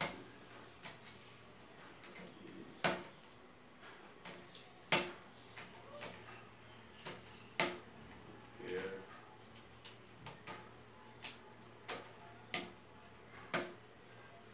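Metal camera tripod being folded up by hand: irregular sharp clicks and clinks from its leg sections and clamps, with two louder knocks about three and five seconds in.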